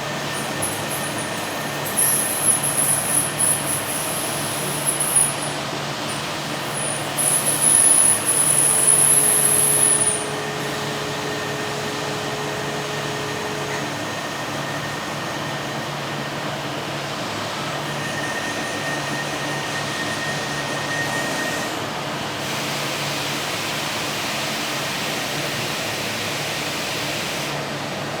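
Automated machining cell with a transfer robot running: a steady machinery noise with a faint high tone, broken in the first ten seconds by three loud, high-pitched hissing spells lasting one to three seconds each.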